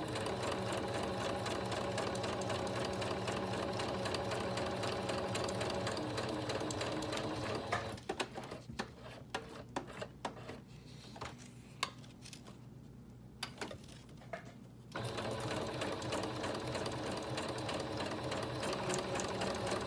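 Sewing machine running a straight stitch, stopping about eight seconds in for a few seconds of scattered clicks and taps, then running again.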